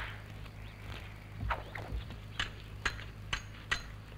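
Sword blades clashing in a duel: a run of sharp metallic clinks, about two a second, starting a little over a second in, over a steady low hum.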